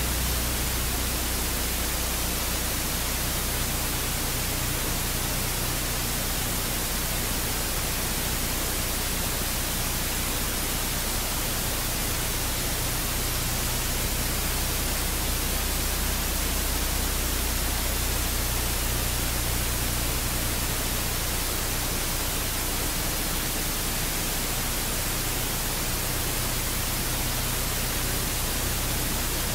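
Airbus A400M's four Europrop TP400 turboprop engines running as it taxis: a steady, even roar with a low drone underneath that weakens a little about two-thirds of the way through.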